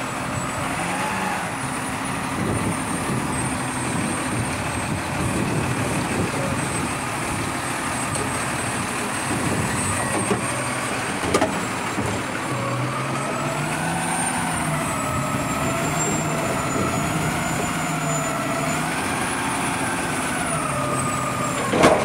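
McNeilus front-loader garbage truck running, its engine revving as the hydraulic fork arms lift a front-load dumpster up over the cab; a wavering whine joins in the middle, and a few bangs come near the end.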